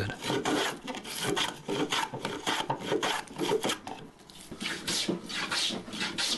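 Hand smoothing plane taking quick, short strokes across a white oak board, each stroke a brief scraping hiss of the blade cutting a shaving, two or three strokes a second.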